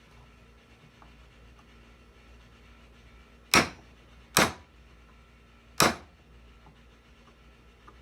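Three sharp hammer strikes near the middle, each ringing briefly, knocking at the screwdriver's handle scales to drive them off.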